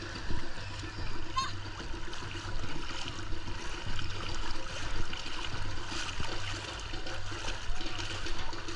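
Water lapping and splashing, with a steady low hum underneath and a short high squeak about a second and a half in.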